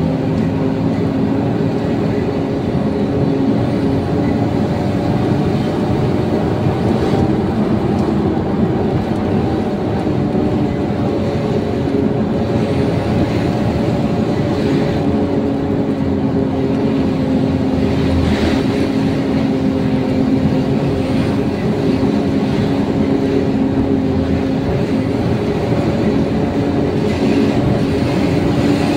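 Truck engine running steadily under way, heard inside the cab as a constant low hum over road rumble.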